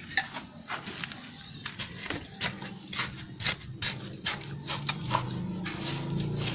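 Hand trowel stabbing and scraping into dry garden soil around a small bougainvillea's roots: a quick, irregular series of crunches and scrapes. A low steady hum comes in near the end.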